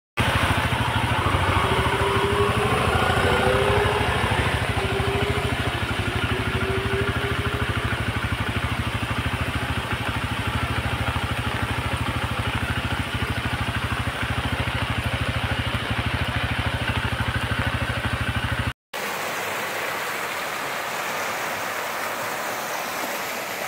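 Fast-flowing muddy floodwater rushing, a loud steady wash of noise with a deep rumble under it. Near the end it breaks off for a moment and picks up again with less rumble.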